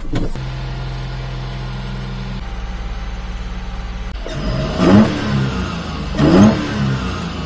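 Daihatsu Hijet mini truck's three-cylinder engine, running on a newly fitted 32mm aftermarket carburetor, idling steadily, then revved up briefly twice in the second half.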